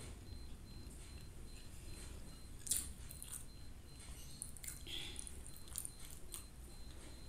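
Small wet clicks of chewing plain cooked white rice, then fingers squishing and pulling at a soft mound of cooked rice on a plate. The sharpest click comes a little under three seconds in, with a cluster of smaller ones later.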